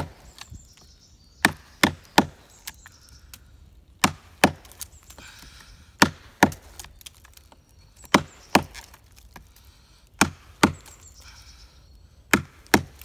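A wooden mallet striking the spine of a knife, driving the blade into a dead log: sharp wooden knocks, mostly in pairs, a pair every two seconds or so.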